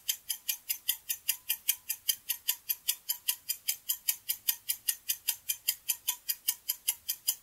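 Quiz countdown-timer sound effect: a clock ticking steadily and quickly, about five ticks a second, counting down the time to answer.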